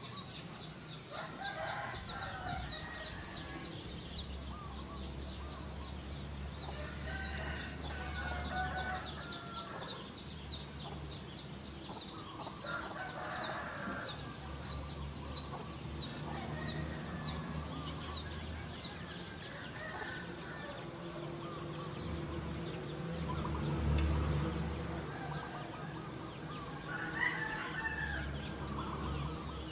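Domestic chickens clucking and calling, with a rooster crowing, in calls that come every few seconds. Over the first twenty seconds or so, a high, even chirp repeats about twice a second.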